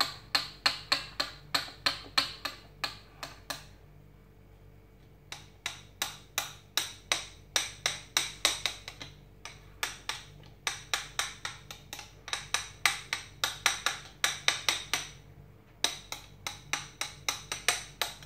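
A metal spoon tapping and knocking against a ceramic bowl while shaping and smoothing thick barley genfo. The knocks come in quick runs of sharp clicks, about four a second, with three short pauses.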